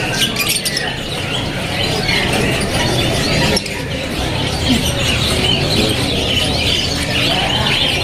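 Many caged canaries chirping and trilling at once, a dense and continuous chorus of overlapping song, with a steady low hum beneath.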